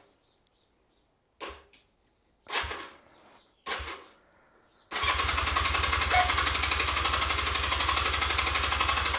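Honda CB250 motorcycle's electric starter on a jump pack: three brief stabs, then the engine cranking over steadily in an even rapid rhythm for about four seconds without catching. It stops abruptly. The bike has a flat, worn-out battery and won't fire.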